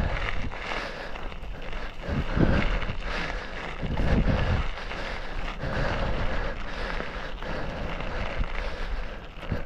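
Bicycle ridden along a narrow gravel path: tyres crunching and the bike rattling with short knocks over the bumps, with wind gusting on the microphone.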